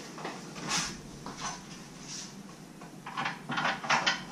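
Metal shovel-holder brackets being handled on a roof rack platform: a short scrape under a second in, then a quick run of scrapes and clacks near the end.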